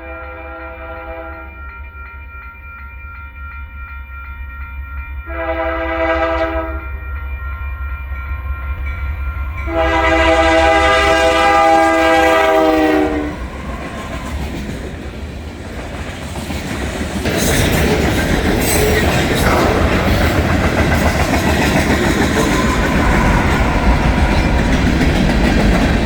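Two rebuilt GE AC44 diesel-electric locomotives approaching a grade crossing, their engines rumbling under a multi-chime air horn. The horn sounds the end of one blast, then a short blast, then a long blast whose pitch drops at the end as the locomotives go by. After that the freight train rolls past loudly, its wheels clicking over the rail joints.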